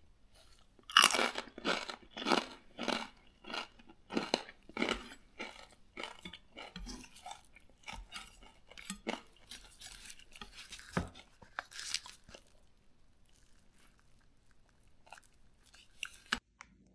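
Chef's knife cutting through the crackling of crispy roast pork belly on a wooden cutting board: a run of sharp crunches, about one or two a second, loudest over the first few seconds, then fainter and more scattered.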